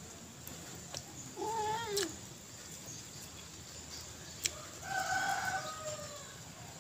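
Two drawn-out, wavering animal calls like a cat's meow: a short one about a second and a half in, and a longer one near the end that falls away. A few sharp clicks come in between.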